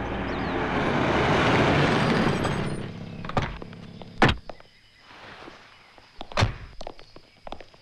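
A rushing noise that fades out about three seconds in, then car door clunks: one about three and a half seconds in, a louder one about four seconds in, and another about six and a half seconds in, with lighter clicks between them.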